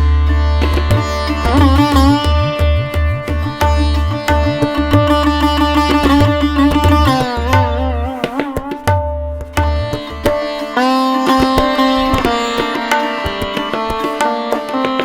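Background music: a plucked string melody with bending, wavering notes over a deep, rhythmically pulsing bass and percussion.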